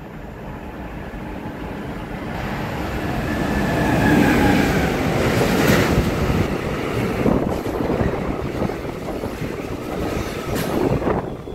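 Freight train of container wagons loaded with tank containers passing close by on the near track. Its noise builds over the first four seconds, then the wagons' wheels rumble and rattle past with a few sharp clacks, and it drops off suddenly near the end as the last wagon goes by.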